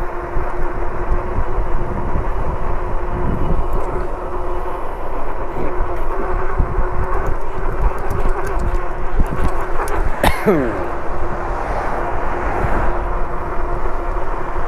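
Riding noise on a Lectric e-bike under way: wind buffeting the microphone and road rumble, with a steady hum. About ten seconds in there is a quick falling whine.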